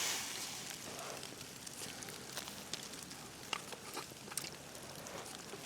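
Campfire crackling faintly: a low hiss with a few scattered sharp pops and ticks.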